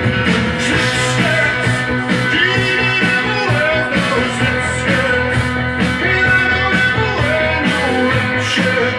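Rock song with singing, guitar and a steady drum beat, played from a vinyl record on a Sansui FR-3060 belt-drive turntable.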